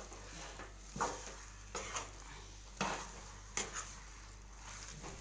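Metal spoon stirring thick puran (cooked chana dal with jaggery and sugar) in a metal kadhai, scraping and knocking against the pan about once a second. The mash is being worked over medium heat so the water that the jaggery and sugar release cooks off.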